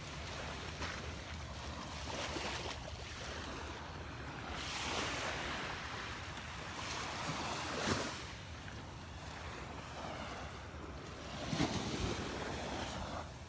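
Small waves washing up and lapping on a sandy beach, swelling and falling back every few seconds, with wind rumbling on the microphone and a couple of sharper gusts about eight and twelve seconds in.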